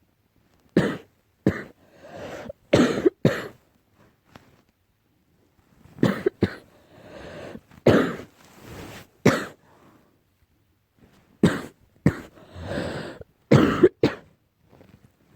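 A person coughing in three bouts of several sharp coughs each, with a drawn-out breath between coughs: an allergy cough.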